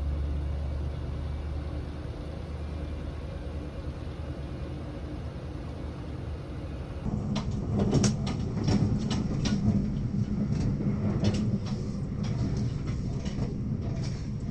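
Steady low rumble of a running vehicle. About halfway through it changes abruptly to a louder rumble with many irregular clicks and knocks.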